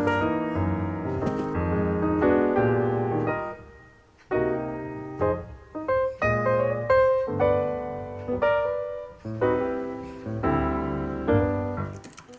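Solo piano music playing in phrased chords, with a short pause about four seconds in.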